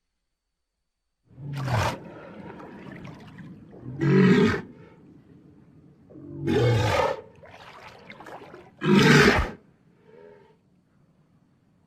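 Ankylosaurus dinosaur sound effect: four loud, short roars about two and a half seconds apart, with quieter rumbling sound between them and a faint short call near the end.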